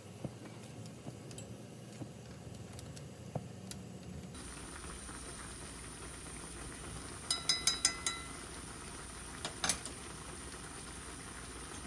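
Ramyeon broth simmering in a metal frying pan while wooden chopsticks stir the noodles. A little past the middle comes a quick run of about five clicks of the chopsticks against the pan, each with a brief ring, and one more tap follows a couple of seconds later.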